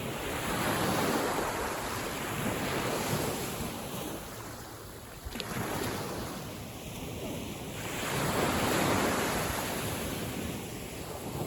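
Small waves of a calm sea washing in, the sound swelling and ebbing in several surges, with wind buffeting the microphone. A short sharp click about five seconds in.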